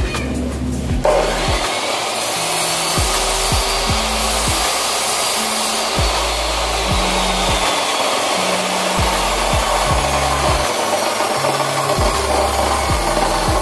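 Abrasive chop saw starting up about a second in and grinding through steel rebar: a steady, loud grinding hiss with a faint high whine. Background music with a bass line plays underneath.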